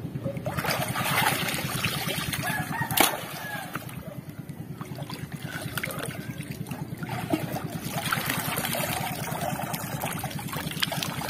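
Shallow seawater splashing and sloshing as a man wades and hauls a rope, net and oyster cluster out of the water, in two spells of splashing, with one sharp knock about three seconds in. A rooster crows in the background over a steady low rumble.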